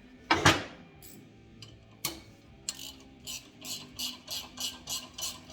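A loud metal clatter, then a hand ratchet wrench being worked in short strokes, about three a second, tightening the bolt that compresses the motorcycle clutch springs.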